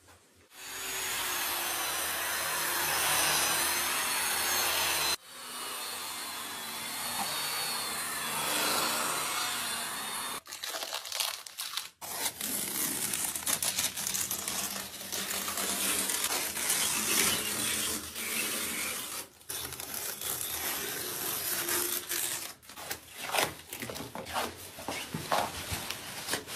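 For about the first ten seconds, a steady rubbing hiss with faint wavering whines, from a cloth burnishing a stucco-marble wall. After that, masking tape being peeled off the wall and crumpled together with protective paper, in irregular crackling and tearing strokes.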